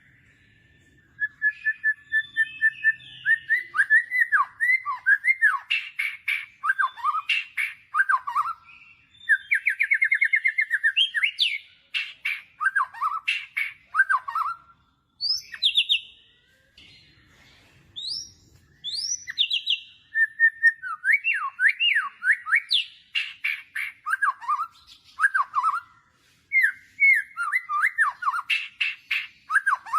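Bird song played as a sound effect: a fast run of varied whistled notes, chirps and rapid trills in phrases, starting about a second in, with a brief pause about midway.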